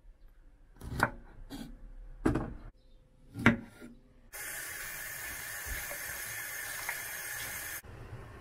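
Chef's knife chopping through kumquats onto a wooden cutting board: three sharp knocks about a second apart. Then a steady hiss of running water for about three seconds, giving way near the end to the lower rumble of a pot of kumquats boiling on a gas stove.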